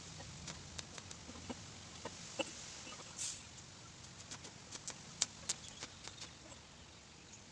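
Welding arc on a titanium motorcycle exhaust header pipe: a faint steady hiss with scattered small irregular clicks and crackles, and a short louder hiss about three seconds in.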